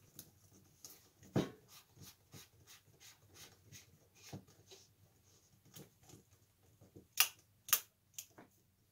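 Brass lamp socket shell being twisted and seated on its cap by hand: a run of small metal clicks and scrapes, with two sharper, louder clicks about half a second apart near the end.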